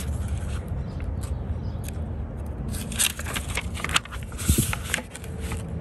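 Paper pages of an instruction booklet being handled and turned, a burst of crackly rustling with sharp clicks about three to five seconds in, over a steady low rumble.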